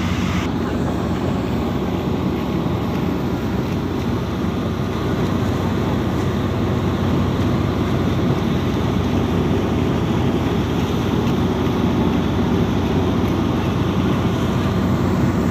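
A wooden passenger boat's engine running steadily at speed, with a low hum under the rush of water along the hull and wind on the microphone.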